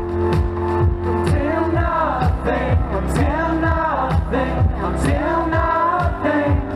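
A live pop band playing an electronic dance beat, with a fast, steady kick drum under a sustained bass line; singing comes in about two seconds in.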